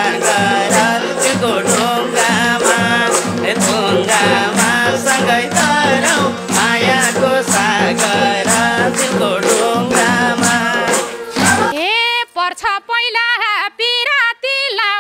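Nepali folk dohori music played live: a band with a steady drumbeat under vocal lines. About twelve seconds in, the instruments stop abruptly and a single voice carries on alone.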